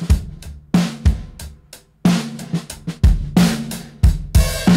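Recorded drum kit (kick, snare, hi-hats and cymbals) playing a groove through a bus processor with its saturation overdrive gain being turned up, so the kit sounds increasingly driven and distorted. A cymbal wash comes in near the end.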